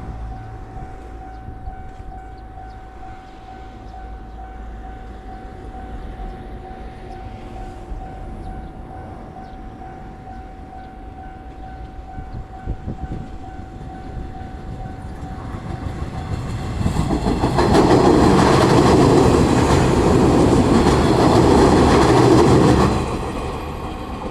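A Japanese railway level-crossing warning bell rings steadily and repetitively. Then an electric train approaches and passes close by, loud for about six seconds with its wheels clattering over the rail joints, and drops away suddenly as it clears the crossing.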